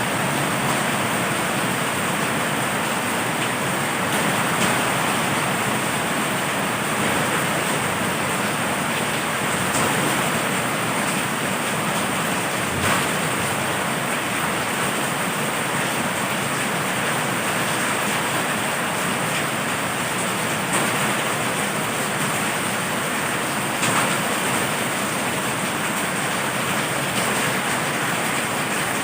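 Heavy rain falling steadily, an even hiss with a few brief louder ticks.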